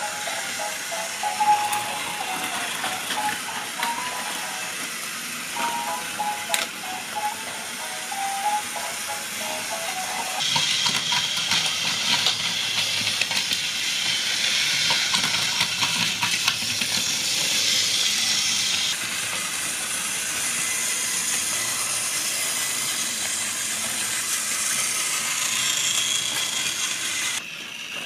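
A simple tune of short electronic notes from the Plarail melody windmill set plays for the first ten seconds. Then the steady high whir of battery-powered Plarail toy train motors and gears running on plastic track takes over until just before the end.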